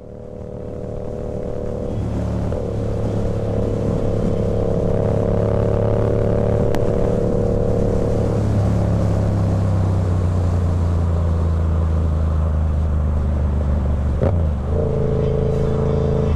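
2016 Yamaha MT-07's parallel-twin engine running at a steady cruise, heard from the rider's seat. The sound fades in over the first two seconds; the engine note changes about halfway through and dips briefly near the end.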